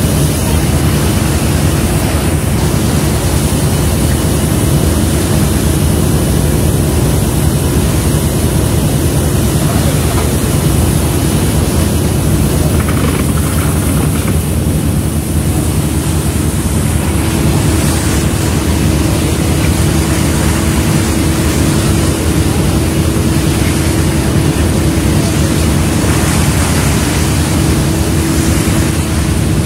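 Steady drone of a fishing trawler's engines and deck machinery, with a hum that grows stronger about halfway through.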